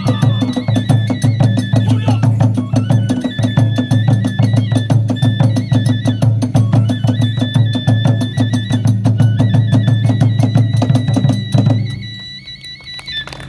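Kagura hayashi, the accompaniment to Hiroshima kagura: fast, dense drumming with clashing hand cymbals under a high flute melody of held, stepping notes. It stops abruptly about twelve seconds in.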